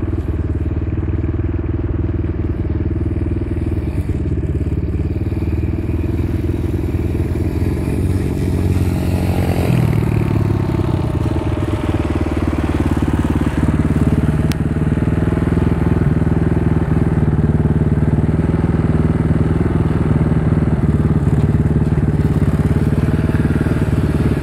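Small engines running throughout, one steady and close. About eight to ten seconds in, an Irbis TTR125 pit bike's single-cylinder four-stroke engine revs up and down.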